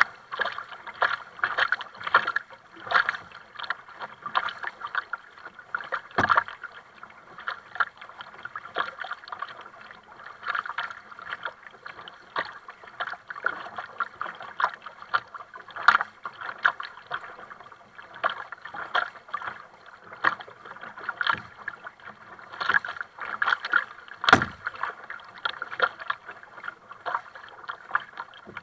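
Kayak paddle blades dipping and pulling through the water in steady alternating strokes, with splashing and water slapping along the plastic hull. Two sharp knocks stand out, one about a quarter of the way in and a louder one near the end.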